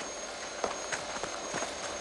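Footsteps on hard ground: a few sharp, irregular knocks, under a faint steady hiss.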